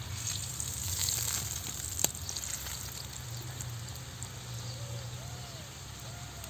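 Herb-stuffed flatbread sizzling on a hot griddle: a crackling hiss that is strongest in the first second and a half, with a sharp click about two seconds in.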